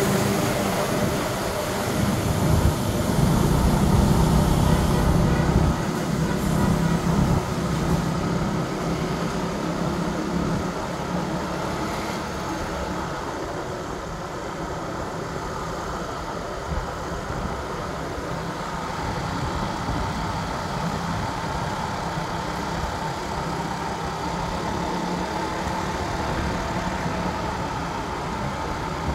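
Ride noise on a motorbike: the small engine running with wind and road noise. A louder, lower rumble in the first few seconds as a small truck goes by close alongside.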